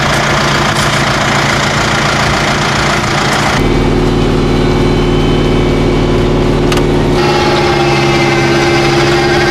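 Tractor's diesel engine running steadily, with a steady drone of machinery; the sound changes abruptly twice, about three and a half and seven seconds in.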